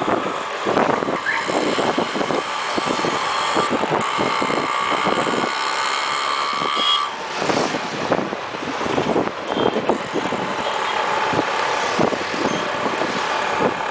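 City street traffic heard from a moving bicycle: the engines of auto-rickshaws, motorbikes and cars passing, with frequent knocks and rattles throughout.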